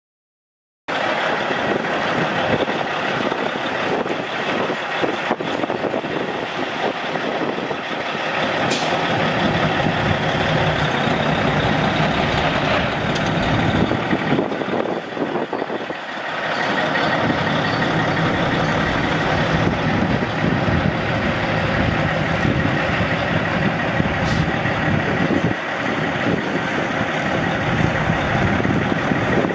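Caterpillar C15 Acert inline-six turbo diesel of a Kenworth T600 semi truck running steadily, cutting in abruptly about a second in.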